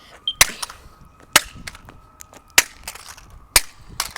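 A smoke detector being smashed with hard blows: about five loud, sharp impacts roughly a second apart, with lighter knocks between them. Just before the first blow the detector gives one short high beep.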